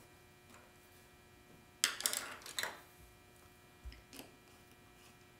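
Light clicks and a short clatter of small parts being handled, with most of it about two seconds in: machine screws being set into a 3D-printed plastic extruder housing by hand.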